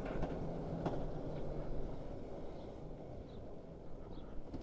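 Motorcycle rolling to a halt on a rough, stony road with its engine cut out: tyre and stone noise with scattered faint clicks, slowly fading. The engine has stalled suddenly, which the rider fears means the chain has come off the front sprocket.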